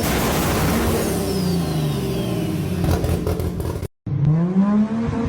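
A car's engine and exhaust running loud, its pitch sliding down as the revs drop, then cut off abruptly about four seconds in. After a brief silence, another engine-like sound starts, rising in pitch and then holding steady.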